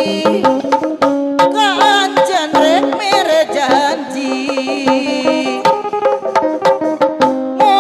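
Sundanese traditional procession music: hand drums struck in a quick, dense rhythm under steady held notes, with a wavering melody line that bends up and down in pitch about two to four seconds in.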